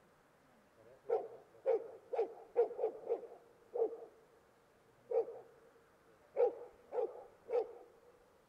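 One-year-old hunting dog bay-barking at a mock bear: about eleven short barks in irregular bursts. A quick run of six comes about a second in, followed by spaced single barks and a final group of three.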